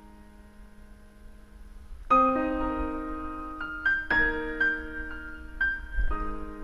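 Background piano music: a held chord fades away, then from about two seconds in new chords and single notes are struck at a slow, gentle pace.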